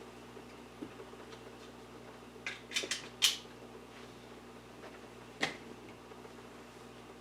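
Sharp plastic clicks of HO-scale model rolling stock being handled and set up for a run: a quick cluster of four clicks about three seconds in and a single click about five and a half seconds in, over a steady low hum.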